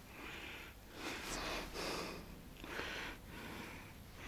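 A person breathing and sniffing close to the microphone, a run of short noisy breaths about one every second.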